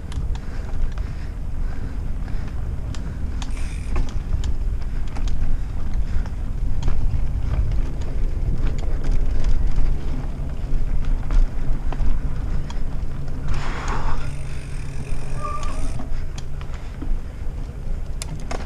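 Heavy wind rumble on the camera microphone and tyre noise from a mountain bike riding a dirt singletrack, with frequent short clicks and rattles from the bike over bumps.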